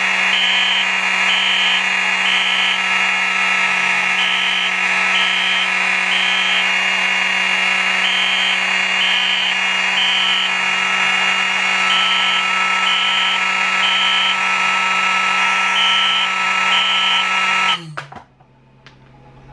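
Fire alarm horns sounding: a steady buzzing horn tone with a higher tone pulsing in a temporal-three pattern, three short beeps and a pause repeating about every four seconds. All of it cuts off suddenly about eighteen seconds in.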